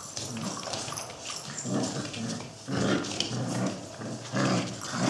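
Gordon setter puppies wrestling in play, giving a run of short growls and yaps, with claws clicking on a tiled floor.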